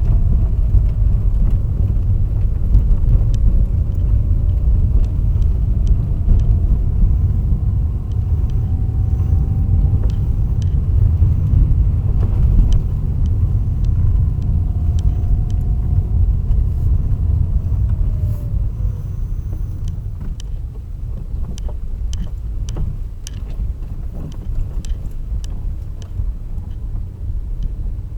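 Lada Kalina being driven: a steady low road and running rumble with irregular sharp knocks from the suspension, the knock this car has developed.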